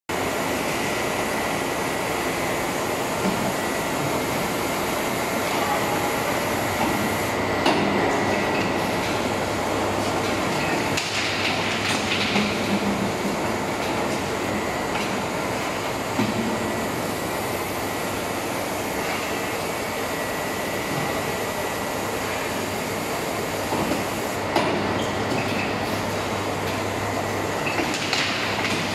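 Steady machine noise from an automatic paint-pail filling and lid-pressing line running on a roller conveyor, with occasional knocks and clatters. A low hum comes in about a quarter of the way through and stops near the end.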